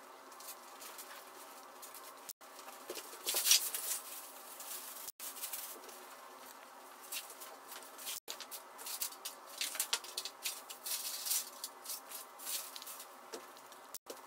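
Crinkling and rustling of plastic sheeting and paper packaging material in irregular bursts, loudest about three and a half seconds in and busy again from about eight seconds on, over a faint steady hum.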